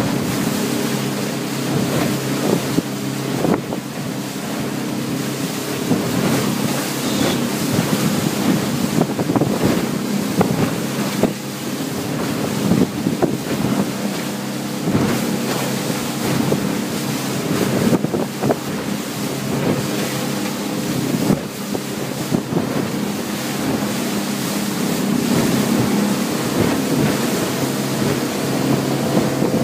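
Speedboat engine running steadily at speed, with water rushing past the hull and wind buffeting the microphone. Frequent short knocks come through the whole time.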